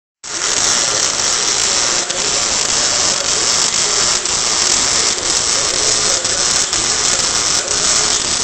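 MIG welding arc burning on sheet steel: a steady, loud crackling hiss that starts just after a momentary break and holds through a continuous bead.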